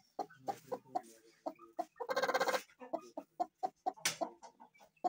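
Chicken clucking in a quick run of short notes, with a loud harsh squawk about two seconds in and a sharp click a little after four seconds.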